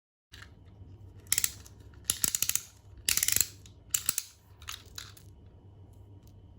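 Hard plastic and acrylic pieces being handled, giving about five short bursts of rapid clicking and clattering.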